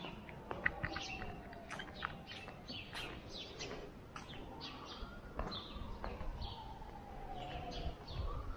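Small birds chirping, many short high chirps scattered throughout, over a faint drawn-out tone that slowly falls and then rises again near the end.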